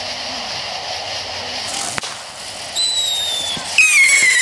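A whistling firework going off: a sharp pop about halfway through, then a short high whistle, then about a second later a louder whistle that slowly falls in pitch and carries on.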